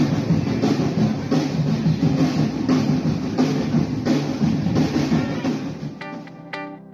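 A street drumming troupe playing slung drums with sticks: a loud, dense, driving beat with a strong accent about every two-thirds of a second. Near the end it cuts off abruptly into quieter background music of plucked notes.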